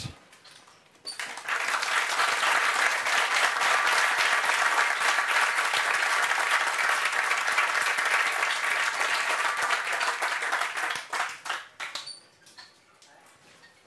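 Audience applauding, starting about a second in and dying away into a few last scattered claps after about ten seconds.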